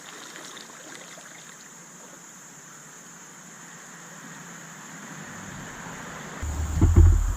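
Steady rush of river water. About six and a half seconds in, loud low rumbling and irregular knocks start.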